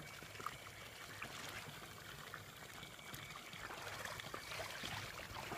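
Faint trickling and lapping of water in an above-ground swimming pool.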